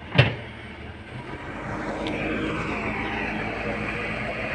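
Excavator engine running and coming up in revs about a second and a half in, after one sharp loud knock right at the start.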